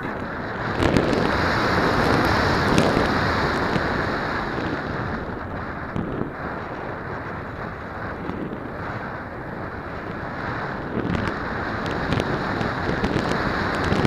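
Airflow rushing over the onboard camera of a Multiplex Easy Star electric RC plane in flight, a steady rush of wind on the microphone. It swells about a second in and eases off after about four seconds, with a few faint clicks.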